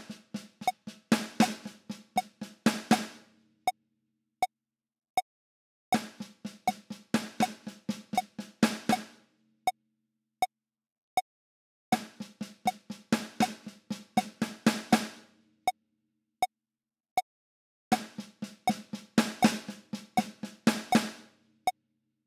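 Triplet six-stroke roll played on the snare of a Roland electronic drum kit, four times over, each run about three seconds of fast strokes ending on a single stroke, with pauses of a few seconds between. A metronome clicks steadily at 80 BPM underneath.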